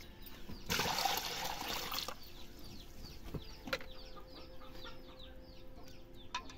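Water poured from a pot into a metal karahi, a splashing pour of about a second and a half starting shortly after the start. Then chickens clucking in the background, many short falling chirps.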